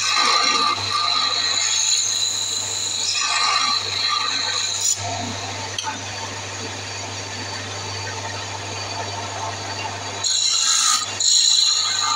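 Wood lathe running with a steady low hum while a hand-held turning tool cuts the spinning wooden spindle, giving a scraping cutting noise. The cutting stops about five seconds in, leaving the lathe running on its own, and starts again near the end.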